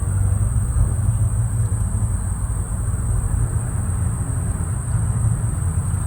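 Steady low rumble under a constant high-pitched insect drone.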